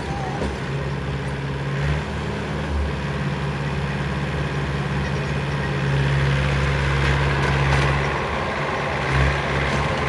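Mahindra 475 DI tractor's diesel engine running under load as it pulls a trailer full of mud, a steady low drone that grows a little louder about six seconds in, with the backhoe loader's diesel running nearby.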